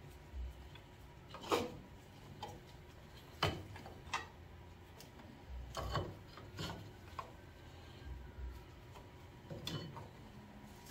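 Rear drum brake being taken apart by hand: scattered sharp clicks, light knocks and scrapes of the steel brake shoe and its springs against the backing plate as the front shoe comes off.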